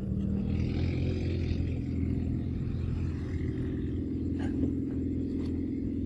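A steady low rumbling hum with a few faint clicks, and a faint higher hiss in the first couple of seconds.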